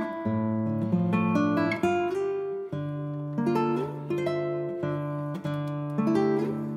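Background music played on guitar: plucked notes picked one after another over held bass notes.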